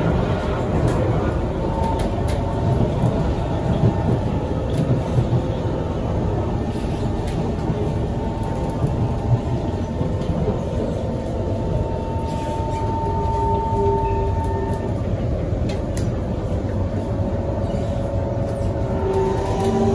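Kawasaki C151 metro train heard from inside the car while running on the track: a steady low rumble of wheels on rail with scattered clicks from rail joints. From about twelve seconds in, faint steady whining tones of the GTO traction motor drive join the rumble.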